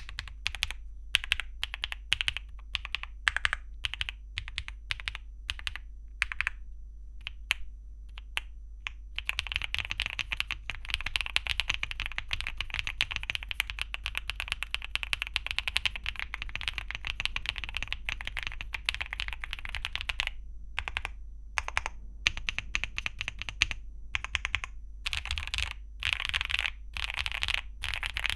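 Keystrokes on a MonsGeek M1 V5 mechanical keyboard with Gateron Type R tactile switches and double-shot PBT Cherry-profile keycaps. Single keys are pressed one at a time at first, then fast continuous typing starts about nine seconds in, thins out briefly past the twenty-second mark, and picks up again.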